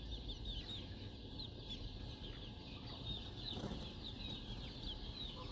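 A group of young chicks peeping: a dense run of short, high cheeps, several a second.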